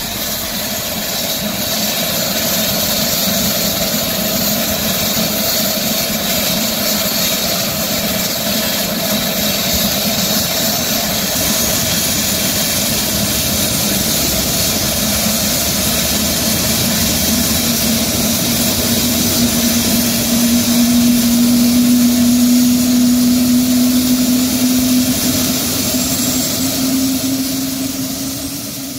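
Twin-turboprop transport aircraft running its engines with the propellers turning: a steady turbine and propeller drone. A hum in it rises slightly in pitch and grows louder through the second half.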